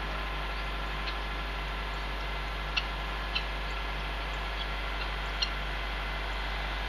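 Juvenile peafowl giving soft, short, high peeps, several of them scattered a second or so apart, over a steady background hiss.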